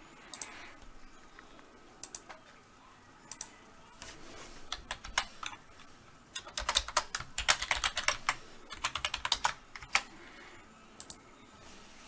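Typing on a computer keyboard: a few single clicks in the first few seconds, then a quick run of keystrokes from about six to nine and a half seconds in as a password is typed, and a couple more clicks near the end.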